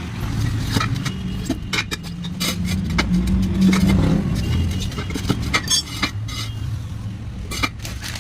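A motor vehicle engine running steadily and swelling briefly about three seconds in, with repeated sharp metallic clinks and knocks over it.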